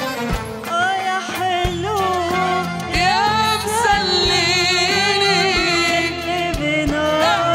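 A woman singing an Arabic song with a live band and percussion. Her voice comes in about a second in, with ornamented, wavering lines and vibrato on held notes.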